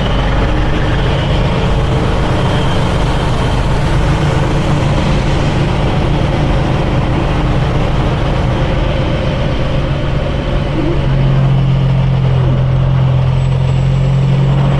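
Kenworth semi truck's diesel engine running steadily while driving, heard from the cab, with its low drone growing louder about eleven seconds in.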